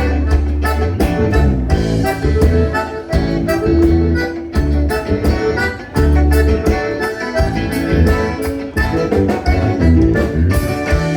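Live gaúcho dance band playing an instrumental passage of a bugio: accordion melody over heavy bass and a steady dance beat.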